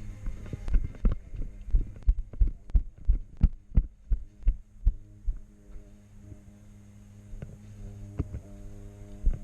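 Dull, low thumps about three a second for several seconds, then a few scattered ones, over a steady low hum. The thumps are typical of running footfalls jolting a helmet-mounted camera.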